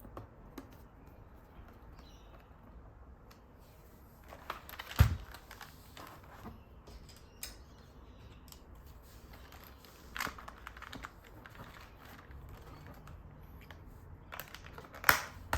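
Sparse plastic clicks and knocks from a Logitech wireless keyboard being handled as it is reassembled. A louder knock comes about five seconds in and another near the end.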